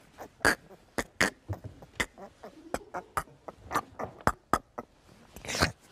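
A man laughing helplessly in short, breathy gasps of stifled laughter, irregular and roughly two a second, with almost no voiced ha-has.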